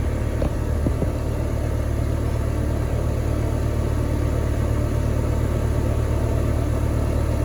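AirTemp (Nortek) 4-ton central air conditioner condensing unit running: a steady low hum from its Copeland scroll compressor and condenser fan.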